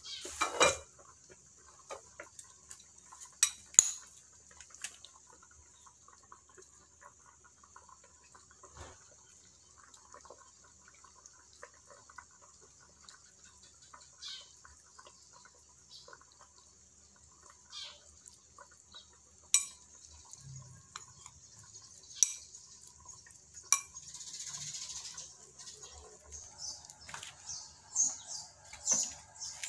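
Metal ladle clinking against an aluminium cooking pot and a glass bowl as boiled chicken is scooped out, in scattered single knocks, with a cluster of clinks near the end. A faint steady high hiss runs underneath.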